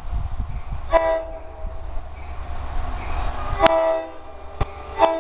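NJ Transit GP40PH-2B diesel locomotive's horn sounding three short blasts, about a second in, near four seconds in and again just before the end, as the train approaches a grade crossing. A low rumble runs underneath for the first few seconds.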